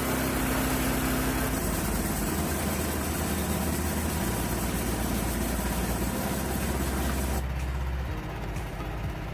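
Portable band sawmill running on its gas engine, with a dense hiss over the engine's steady rumble. About seven seconds in the hiss drops away sharply, leaving a lower engine sound.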